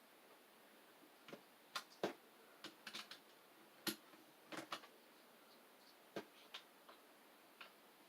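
Faint, irregular clicks and taps of keycaps being handled, pulled off and pressed onto a keyboard.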